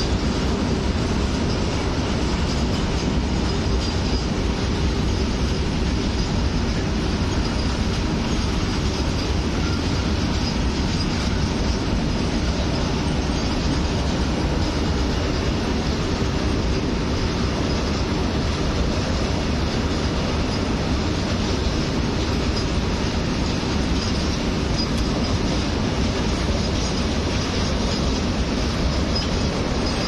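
Double-rake goods train of loaded open wagons rolling past at steady speed: a continuous rumble and rattle of wagon wheels on the rails, even throughout.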